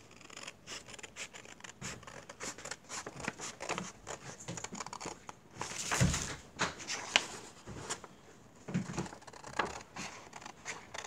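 Scissors cutting a sheet of paper in a run of short snips, with paper rustling as it is handled. A louder rustle and bump comes about six seconds in.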